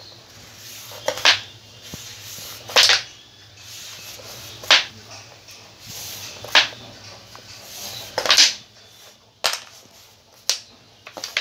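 Plastic Slingpuck discs snapped by the board's elastic bands and clacking against the board's walls and each other: about nine sharp clacks, one every second or two, some coming in quick pairs.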